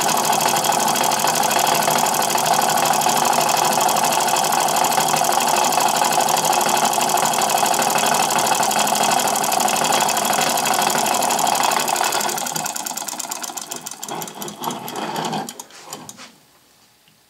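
Homemade 12-volt solenoid model engine running fast: the solenoid plunger pulls the flywheel round in a rapid mechanical clatter. About 12 seconds in it slows, the separate strokes spreading apart, and it stops about 16 seconds in.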